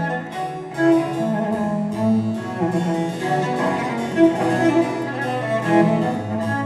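Instrumental music led by bowed strings with a prominent cello line, played back through a floorstanding hi-fi loudspeaker and picked up by microphones in the room.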